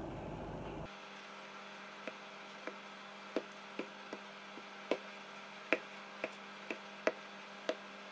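Wooden rolling pin rolling out a stiff dough on a granite countertop, its handles and barrel giving about a dozen sharp, irregular wooden clicks.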